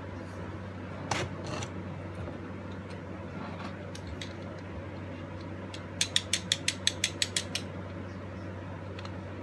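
Mechanism of an 1884 antique clock clicking: two clicks about a second in, then a quick, even run of about ten sharp clicks lasting a second and a half, over a steady low hum.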